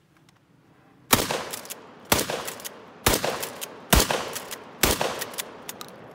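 Mossberg 500A 12-gauge pump-action shotgun fired five times, about a second apart, each shot trailing off in an echo. Between shots and after the last one there are clacks of the pump action being worked.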